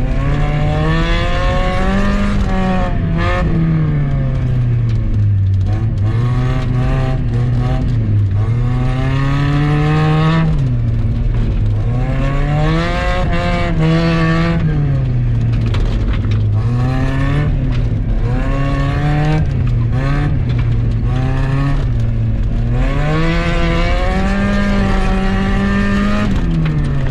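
1999 Mazda Miata's 1.8-litre four-cylinder engine heard from inside the cabin while being driven hard, revving up and falling back again and again through the run. Near the end the revs drop steadily.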